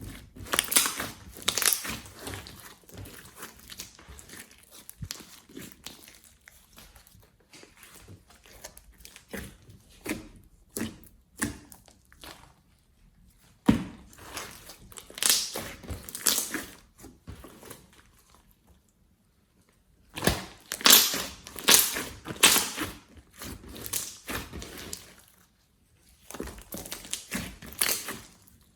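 Slime being squeezed and worked by hand, crackling and popping in bursts with short pauses between handfuls.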